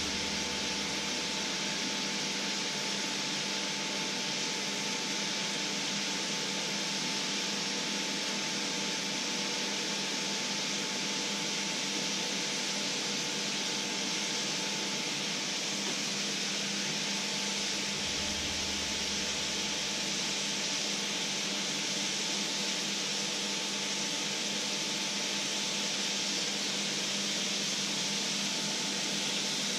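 Liquid sizzling steadily in a black steel pan on an electric hob: a continuous even hiss, with a faint steady hum underneath.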